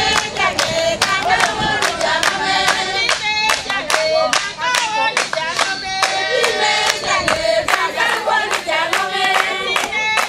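A group of women singing together, with steady handclaps keeping time at about three claps a second.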